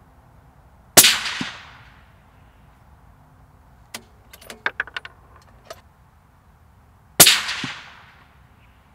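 Two shots from a bolt-action rifle fitted with a sound moderator, about six seconds apart, each with a ringing tail and a fainter knock about half a second after. A run of small clicks comes between the shots.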